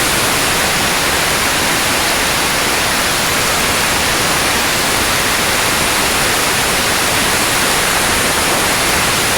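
Compressed air blasting out of an air compressor's tank through an opened valve in a loud, steady hiss. The tank's stored pressure is being released after the compressor has cut out automatically at full pressure.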